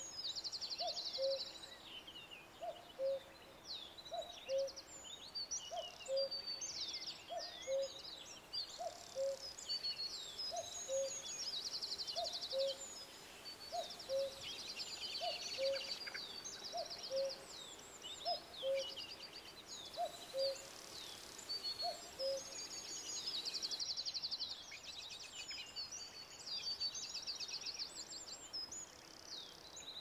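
Birdsong chorus: many small birds chirping and trilling. Under them a low two-note call, the first note higher than the second, repeats about every second and a half and stops about two-thirds of the way through.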